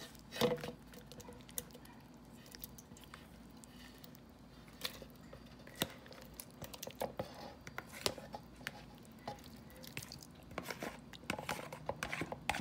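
Metal spoon scraping and clicking against a bowl as soft roasted tomatoes, onion and habanero chiles are scooped into a blender jar. The sound is scattered clicks and soft wet squishes, more frequent near the end.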